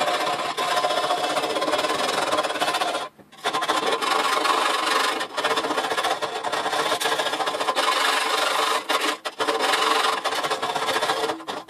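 A tiny file rasping against the edge of a freshly drilled hole in a sheet-metal panel, filing off the burr left by the drill. It runs as continuous scraping with a short break about three seconds in.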